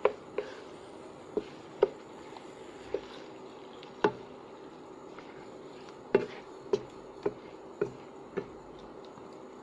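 Wooden spatula knocking and scraping against a wok while chicken pieces are turned, about eleven sharp knocks at uneven intervals over a faint steady hiss.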